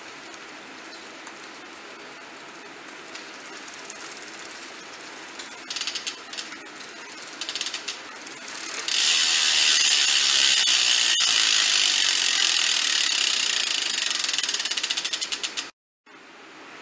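E*thirteen LG1+ bicycle rear hub freewheeling, its freehub pawls ratcheting in a fast buzz of clicks. Two short bursts come about six and seven and a half seconds in, then a long loud run from about nine seconds in that slows toward the end and cuts off abruptly.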